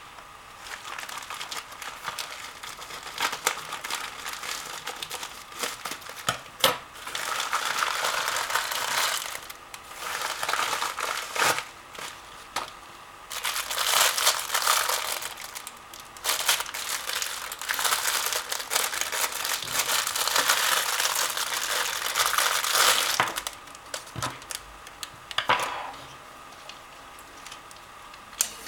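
Parcel packaging crinkling and tearing as it is opened by hand, in several long stretches of rustling with scattered sharp clicks in between.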